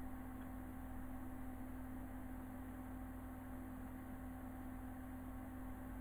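A faint steady hum with one constant low tone held through it.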